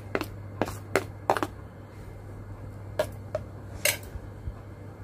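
Kitchen utensil knocking against a bowl several times in short, uneven clicks, as chopped vegetables are tipped into curd, over a steady low hum.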